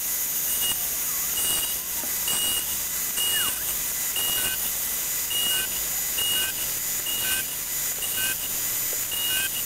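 Milling machine with a helical end mill cutting metal, a steady noisy run, with short high beep-like tones repeating about every 0.8 s and a second, lower series joining about halfway through.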